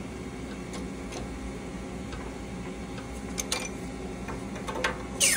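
Long riveting tool working a flat-head rivet into a steel receiver: sparse light metallic clicks and ticks, ending with a louder sharp metal squeak that falls in pitch.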